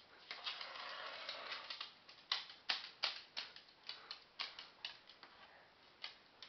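Light, irregular clicks and taps, a few a second, from a black-headed caique's feet and beak on a hard surface as she moves about, with a faint rustle in the first couple of seconds.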